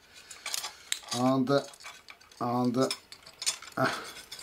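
Light metallic clicks and clinks from a small circuit board and its sheet-metal shield being handled and worked loose by hand. In the middle there are two short, low hums from a man's voice.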